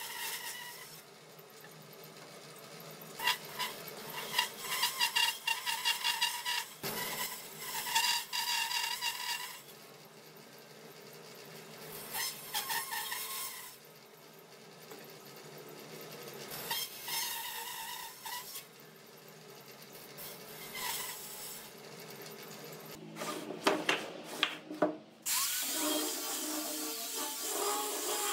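A power tool working wood in repeated bursts of one to three seconds, its whine coming and going between quieter gaps. About 25 seconds in, the sound changes abruptly to a steadier machine noise.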